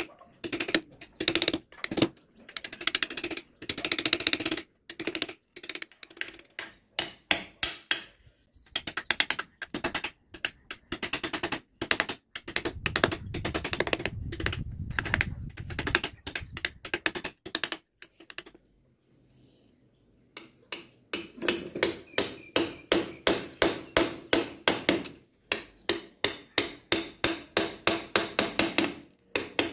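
Repeated sharp knocks of a mallet driving a flat wood-carving chisel into wood, in runs of about three strikes a second, with a short pause about two-thirds through.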